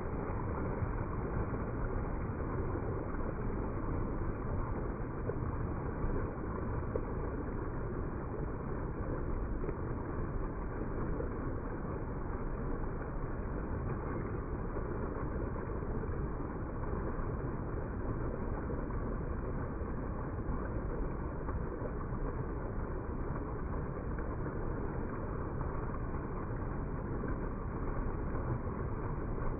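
Small rocky woodland stream running over stones and little cascades: a steady rush of water.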